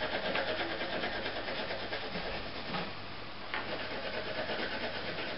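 Red coloured pencil shading quickly back and forth on paper, a steady run of rapid, even strokes.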